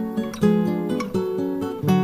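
Background music: an acoustic guitar piece, with plucked chords changing about twice a second.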